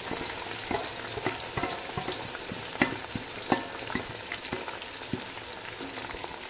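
Sliced onions sizzling in hot oil in an aluminium pot, a steady hiss with irregular sharp clicks and knocks as a wooden spatula stirs them. This is the start of frying the onions in oil where whole spices were already crackling.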